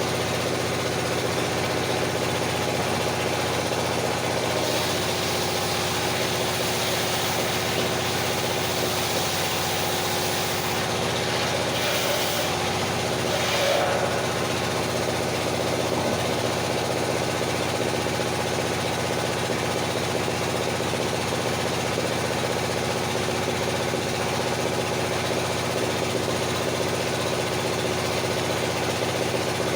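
Engine driving a circular sawmill, running steadily at a constant speed, with a brief swell of noise about halfway through.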